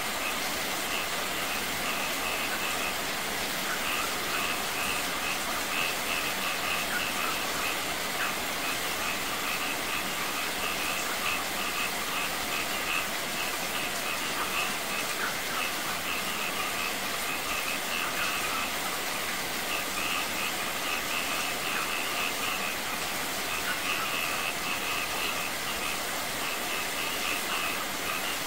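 Steady rain falling and splashing on a shallow pool, with water pouring from a wall top and running over a small rock cascade. Through the rain comes a high, rapid chirping in repeated trains, with short gaps between them.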